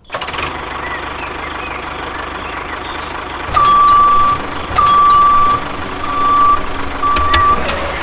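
A vehicle engine runs steadily. From about three and a half seconds in, a reversing alarm sounds four long, even beeps at one pitch, a little over a second apart.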